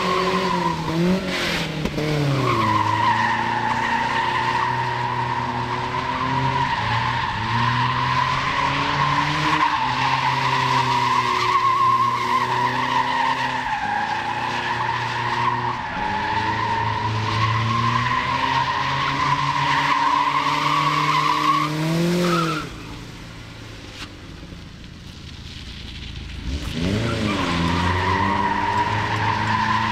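A car drifting: its tyres squeal in one long, wavering screech over the engine held at high revs, its pitch rising and falling. About three-quarters of the way through, the squeal stops and it goes quieter for a few seconds, then the engine revs up and the tyres squeal again near the end.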